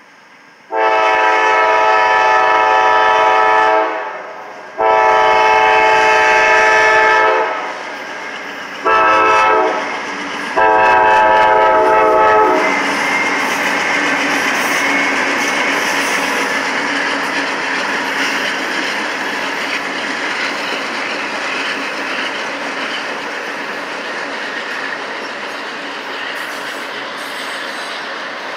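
Norfolk Southern diesel locomotive's air horn sounding the grade-crossing signal, long, long, short, long. The locomotive and its train of autorack cars then roll past with a steady rumble that slowly fades.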